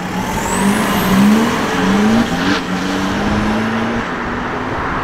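Lowered Audi A3 hatchback's engine accelerating away. Its pitch climbs and drops back twice as it shifts up, then holds nearly steady as the car moves off.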